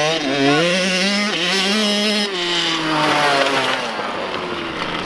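Small dirt bike engine running under throttle. Its pitch holds high, drops about two seconds in and then falls steadily as the bike slows.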